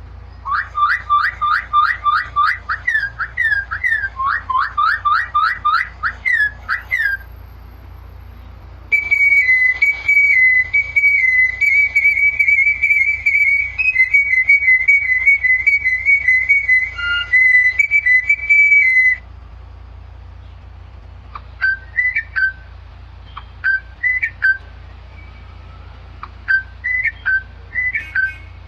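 A bird's whistled calls. A rapid run of short rising whistles comes first, then a fast warbling trill held for about ten seconds, then short chirps with gaps between them near the end.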